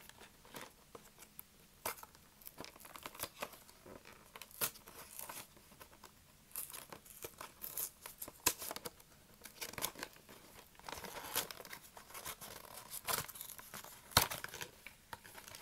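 A snack kit's box and plastic packaging being torn open and crinkled by hand: irregular ripping and crackling with sharp snaps, the sharpest near the end.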